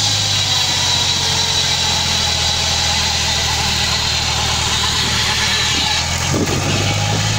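Tractor engine running steadily, driving a circular saw bench as a log is fed through it, with a steady high whine over the engine's low note that fades about six seconds in.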